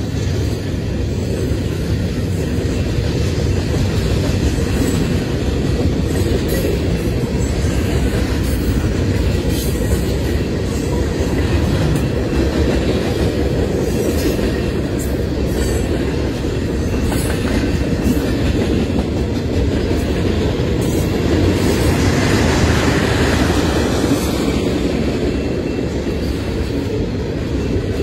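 Freight cars of a long mixed freight train rolling past close by: a steady rumble of steel wheels on rail with clicking over the rail joints. About three-quarters of the way in, a brief higher wheel squeal falls away.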